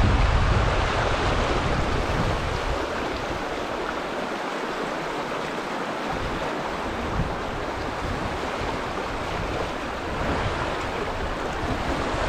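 Fast river water rushing over rocks in a shallow riffle, a steady rush. A low rumble of wind on the microphone dies away after about two seconds.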